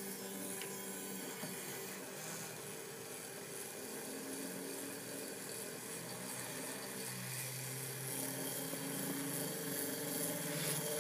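A small gyroscope rotor spinning with a steady whirring hum; its pitch shifts about seven seconds in.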